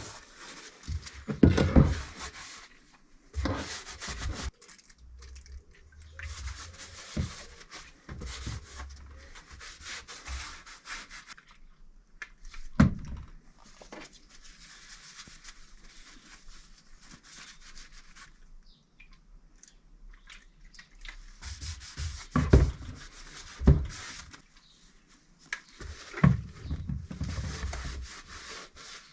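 Vise parts being wiped and rubbed down with a cloth in irregular stretches, with several sharp knocks as the metal parts are handled and set down.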